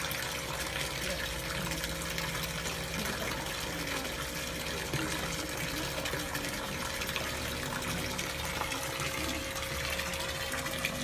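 Steady stream of water pouring from a pipe into a small concrete pond, splashing on the surface.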